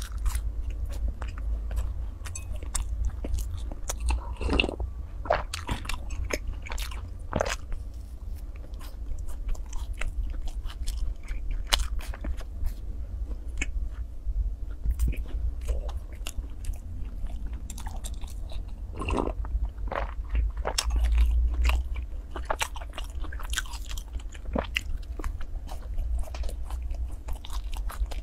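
Close-miked biting and chewing of soft raisin sachima (Chinese fried-dough puffed cake), with many small sticky crackles and clicks, over a steady low hum.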